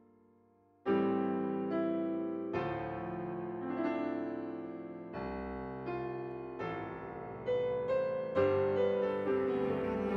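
Solo piano music over the credits. A held chord dies away, then about a second in a new chord is struck. Chords and melody notes follow about once a second, each one ringing and fading.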